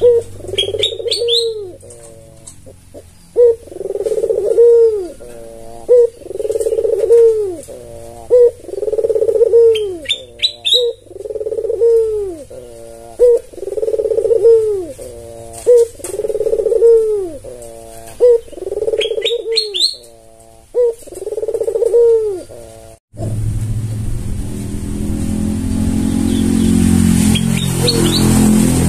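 White albino ringneck dove (puter) cooing over and over, about one coo every second and a half, with brief high chirps three times. About 23 seconds in the cooing stops and a steady low rumble takes over.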